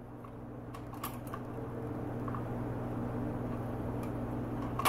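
Vintage Symphonic record player's automatic return cycling: the tonearm lifts off the record and swings back to its rest with a few soft mechanical clicks, ending in one sharper click near the end. A steady hum from the warmed-up tube amplifier runs underneath.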